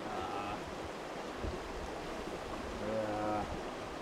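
Small mountain stream rushing steadily. Two brief pitched sounds break through: a short high note right at the start and a lower, slightly louder hum about three seconds in.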